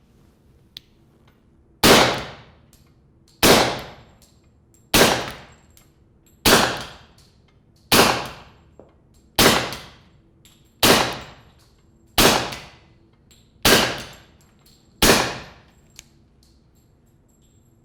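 An HK45 pistol fitted with a SilencerCo Osprey 45 suppressor fires ten suppressed 230-grain .45 ACP rounds at a steady pace, about one every one and a half seconds. Each shot is a sharp report that fades over about half a second.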